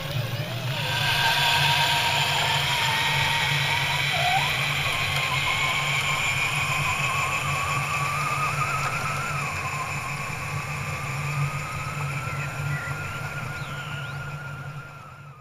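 Small electric motors and geared drivetrains of scale RC crawler trucks whining as they drive over gravel, the whine wandering up and down in pitch with the throttle over a steady low hum.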